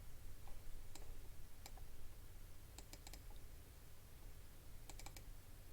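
Sparse clicking on a computer as the map view is steered: single sharp clicks about one and nearly two seconds in, then quick clusters of three or four clicks near three and five seconds, over a low steady hum.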